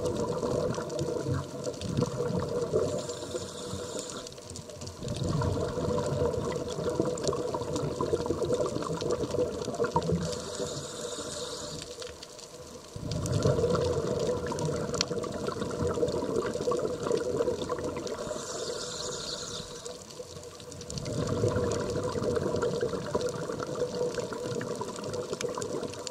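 A scuba diver breathing through a regulator underwater. Long stretches of exhaled bubbles are broken three times by a short hiss of the regulator on the inhale, a cycle of roughly eight seconds.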